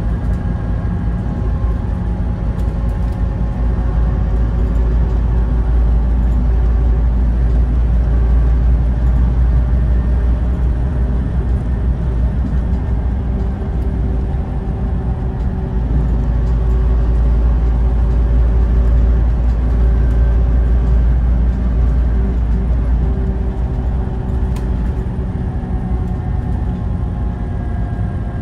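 Scania OmniLink CK230UB city bus heard from inside the passenger cabin while driving: a deep diesel engine rumble under the whine of its ZF Ecomat automatic gearbox, which is quite tuneful. The engine note eases around the middle, then builds again, with a few light clicks and rattles from the interior trim.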